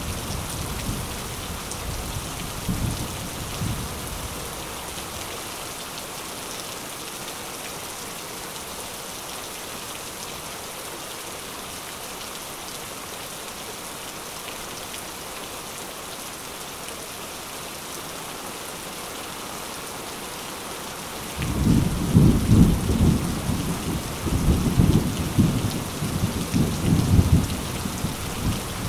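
Thunderstorm: steady rain hissing throughout, with low rolling thunder that fades away over the first few seconds. Two-thirds of the way in, a sudden heavy rumble of thunder breaks in and rolls on in several swells until near the end.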